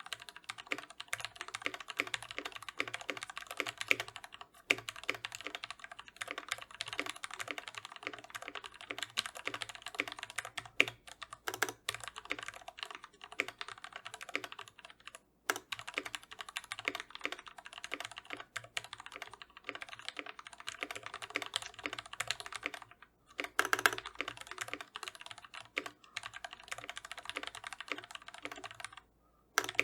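Typing on a custom mechanical keyboard (Disarray kit with a brass plate, Gateron Ink Yellow linear switches lubed with Krytox 205g0, GMK keycaps): a steady run of key clacks at typing speed, with brief pauses about 15 and 23 seconds in.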